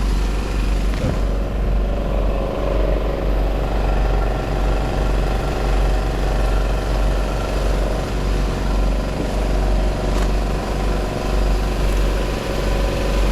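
An engine running steadily: a continuous hum over a low rumble.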